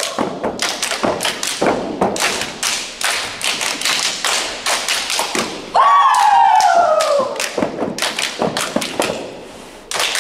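Step team stepping: rapid rhythmic foot stomps, hand claps and body slaps from a group of dancers. About six seconds in, a long high yell cuts in and falls in pitch, the loudest moment.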